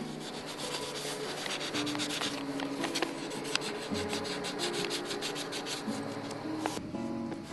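Colored pencil scratching on paper in rapid back-and-forth shading strokes, stopping abruptly near the end, with soft music underneath.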